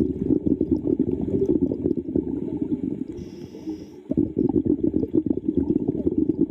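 Bubbling, gurgling water noise heard underwater, dense with small irregular pops, easing off briefly about three seconds in before picking up again.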